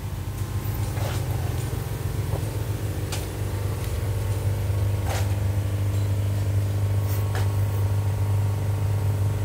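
Steady electric hum of the linear air pumps that run the fish-pond aeration, a constant low drone with a few faint clicks over it.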